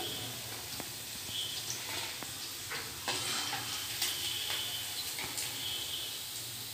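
Hot oil sizzling steadily in a steel pan as balls of egg 65 mixture deep-fry, with scattered small pops and clicks.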